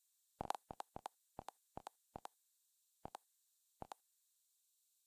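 Faint Android TV interface navigation clicks from the Tivo Stream 4K. There are about eight quick double ticks at uneven intervals, one for each step the selection moves down the TiviMate channel guide.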